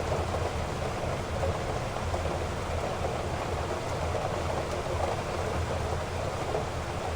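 Heavy rain falling steadily: a dense, even hiss of rain with a low rumble underneath.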